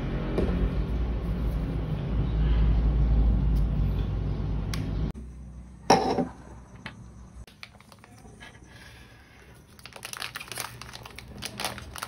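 Steady low rumble under hands handling small plastic and paper packaging; the rumble cuts off about five seconds in, followed by a sharp knock, then light clicks and taps and the crinkle of a plastic packet near the end.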